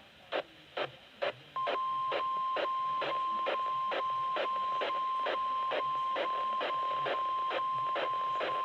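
NOAA Weather Radio's 1050 Hz warning alarm tone, a single steady beep starting about a second and a half in and holding, the signal that a warning message follows. A regular ticking of interference, about three ticks a second, runs underneath.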